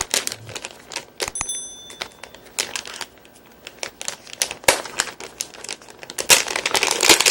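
Thin plastic packaging being torn open and crinkled by hand, with irregular crackles and rustles that grow denser and louder near the end.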